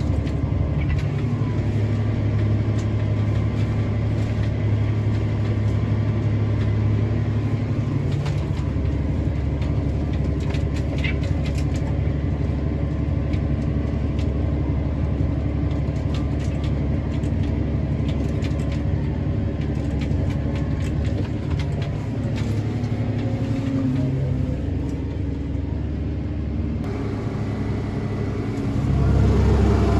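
Tractor engine running steadily while pulling a speed disc, with scattered clicks and clanks from the working implement. It gets louder about a second before the end.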